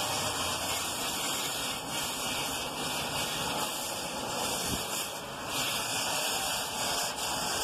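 Garden hose spray nozzle jetting water onto a metal evaporator fan shroud and fan motor: a continuous hiss of spray that holds steady throughout.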